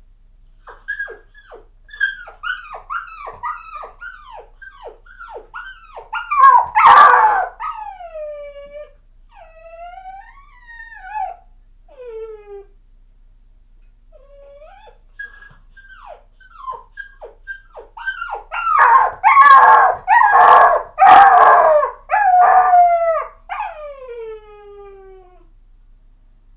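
A puppy crying and whimpering: strings of short, high, falling whimpers, about two a second, broken twice by louder, longer wailing cries that bend up and down and slide downward at the end.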